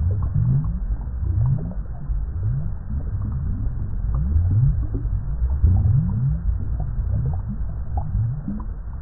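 Water bubbling in deep, low gurgles, each one gliding slightly upward in pitch, about once a second, with small lighter pops scattered between them.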